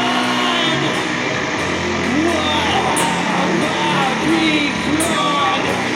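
Doom metal band playing live: heavily distorted guitars and bass hold sustained chords, with notes that bend in pitch and sharp cymbal hits about three and five seconds in.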